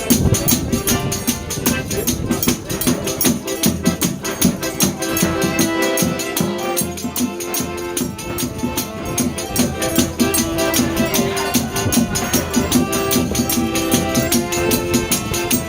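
Forró pé de serra band playing: a quick, even percussion pulse drives the rhythm under held melody notes.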